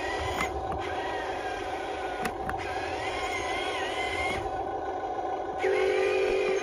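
Small electric motors of a radio-controlled toy excavator and dump truck whirring, with a whine that wavers in pitch and occasional sharp clicks. Near the end a louder steady hum sets in for about a second.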